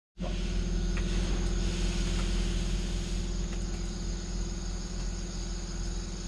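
Steady chirping of insects over a low continuous hum.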